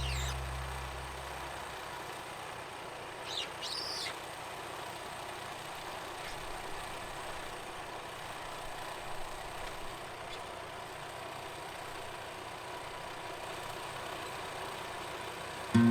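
Faint, steady outdoor background hiss with a bird chirping briefly about three and a half seconds in, as the last of the background music fades out in the first second.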